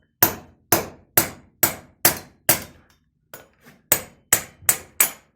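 Hammer blows on metal, driving valve guides out of a heated KamAZ truck cylinder head. The hammer strikes sharply and evenly, about two blows a second, with a short pause and two lighter taps about three seconds in.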